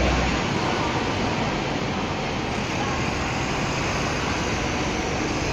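Trams and road traffic running, a steady wash of street noise. A low rumble fades out about half a second in.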